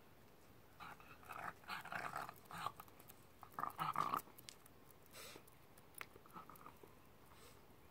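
A small dog on a leash making short vocal sounds in two clusters, the louder one about four seconds in, followed by a few fainter clicks.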